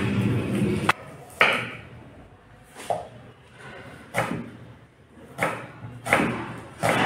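Chef's knife slicing a red onion on a wooden cutting board: the blade knocks on the board about once a second, in an uneven rhythm.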